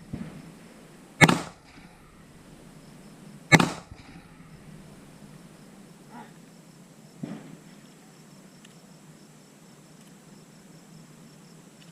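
Gunshots on a firing range: two loud shots about two seconds apart, each with a short echo, then a fainter shot about seven seconds in.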